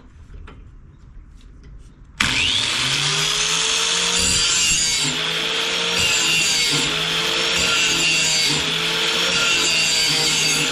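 A grinder with a carbide wheel starts up about two seconds in and grinds a steel mower blade edge, a loud steady grinding whose pitch dips and recovers about every one and a half to two seconds as the blade is worked along the wheel. A few light knocks come before it starts.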